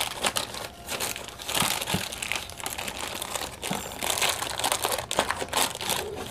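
Grey plastic shipping bag crinkling and rustling as hands pull and tear at it to open it, an irregular, continuous crackle.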